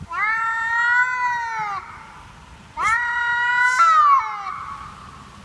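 A cat meowing twice in long, drawn-out calls, each about a second and a half, rising and then falling in pitch. There is a brief click during the second call.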